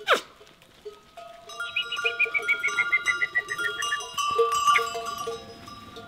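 A herd of goats on the move, with many bells clinking and ringing unevenly. A sharp call that glides quickly downward comes first and is the loudest sound, and a quick run of falling notes follows a little later.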